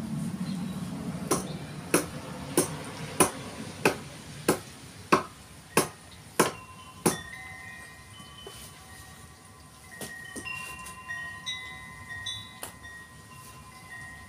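About ten sharp knocks in an even rhythm, roughly one and a half a second, each ringing briefly. After them, from about halfway, several clear bell-like tones at different pitches start one after another and ring on.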